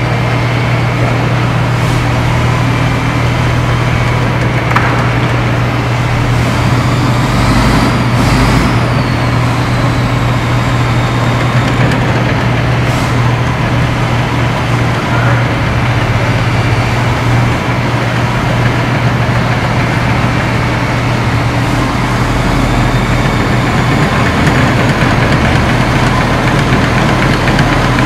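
A wheel loader's diesel engine runs steadily as it pushes a dead loader along, with a few sharp knocks and a brief falling squeal about eight seconds in.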